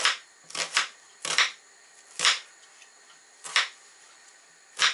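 Kitchen knife slicing through an onion and knocking down on a cutting board: sharp, unevenly spaced chops, some in quick pairs, about eight in all.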